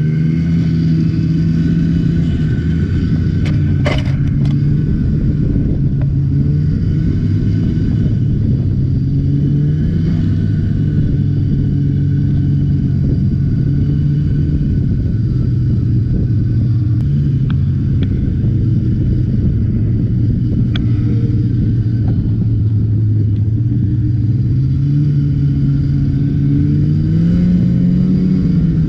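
Two-stroke snowmobile engine running under way at a fairly steady speed, heard from on board the sled. Its pitch wavers a little and climbs near the end.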